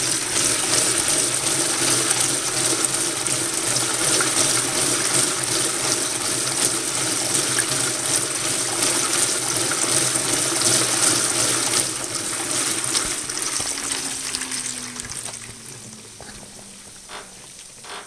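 2012 LG top-load washer's tub spinning with water rushing and the drive motor humming steadily. In the last few seconds the spin winds down: the motor tone falls in pitch and the water noise fades away.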